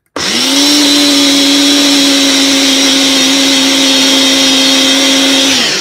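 Personal blender's motor running with its cup pressed down onto the base, blending chopped fruit and cucumber. It spins up quickly to a steady, loud whine, then winds down and falls in pitch near the end as the cup is released.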